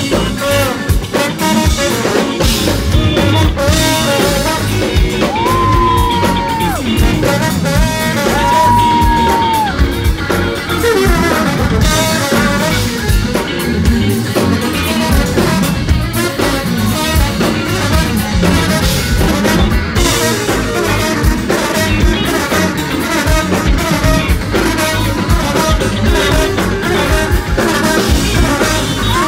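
Band music led by trombone, with electric guitar and drum kit. A few seconds in, two long held high notes each fall away at the end.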